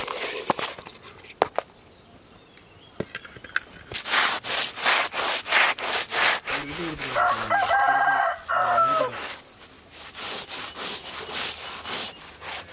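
Snakehead murrel fish being scaled by hand, with repeated scraping strokes about two to three a second starting about four seconds in, after a few scattered clicks. A rooster crows once midway through the scraping.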